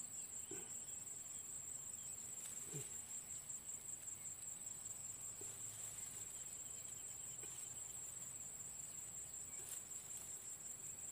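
Insects trilling: a steady, high-pitched, rapidly pulsing trill, with a few faint scrapes and clicks from the trap being set in the soil.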